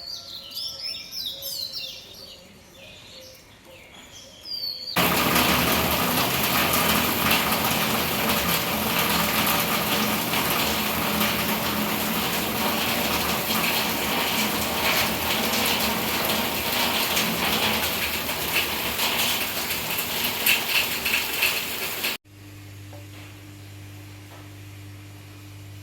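Birds chirping for the first few seconds, then a sudden switch to loud, steady heavy rain lasting about seventeen seconds, which cuts off abruptly and leaves a steady low hum.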